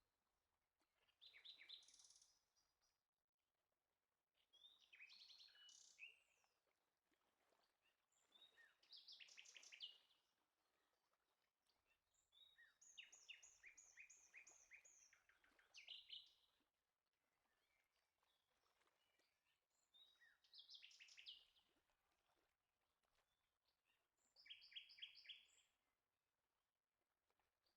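Faint bird song: short phrases of quick, repeated chirps and trills, about six of them a few seconds apart with pauses between.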